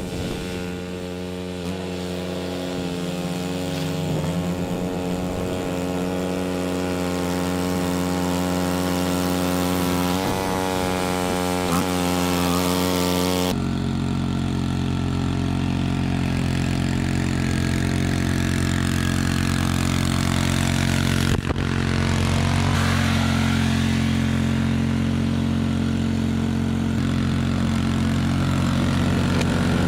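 Cub Cadet 2X 30-inch EFI two-stage snow blower's engine running steadily. Its sound changes abruptly about halfway through.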